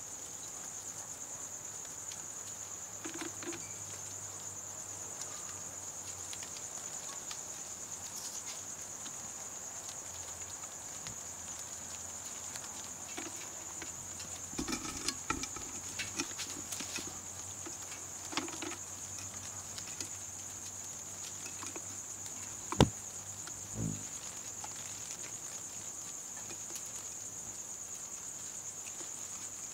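Night insects, crickets, trilling in a steady high-pitched drone, with a few scattered taps and knocks over it, the loudest a sharp tap about three-quarters of the way through.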